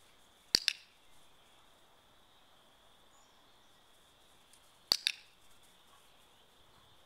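A dog-training clicker sounding twice, about four seconds apart. Each is a sharp two-part click-clack of press and release, marking the puppy's correct behaviour.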